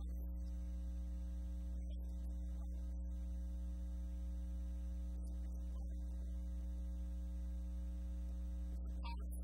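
Steady low electrical mains hum, with fainter higher hum tones stacked above it and no other sound.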